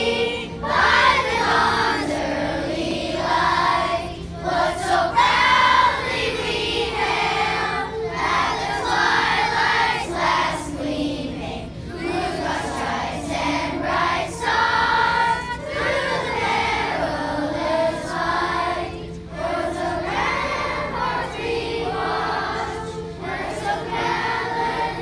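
A large group of elementary-school children singing together in unison, phrase after phrase with short breaks between lines.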